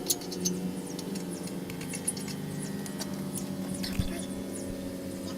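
A steady low mechanical hum with scattered light clicks and taps, the sharpest about two and four seconds in.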